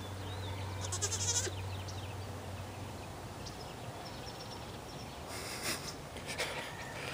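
LaMancha goat bleating once, a short call about a second in, followed near the end by a few scuffs of its hooves in loose dirt.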